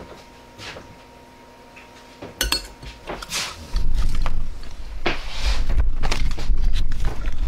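Dishes and cutlery being handled: bowls and spoons clinking, faint at first, then from about four seconds in joined by a loud low rumble of bumps and knocks.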